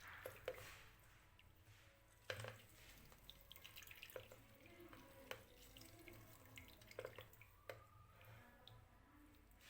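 Faint kitchen sounds: a few light, irregular taps and clicks over quiet room tone.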